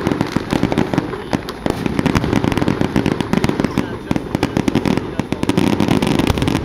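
Fireworks display: aerial shells bursting, with a dense, continuous crackle of rapid pops.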